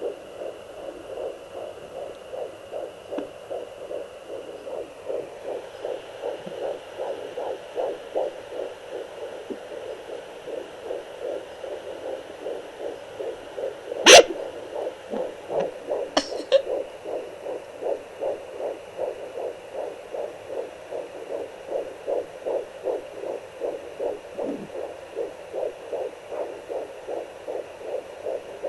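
Fetal heartbeat picked up by a handheld fetal doppler at 13 weeks of pregnancy: fast, even pulses, about two to three a second, over a faint steady hiss from the doppler's speaker. A sharp loud thump comes about halfway through, and a smaller click follows a couple of seconds later.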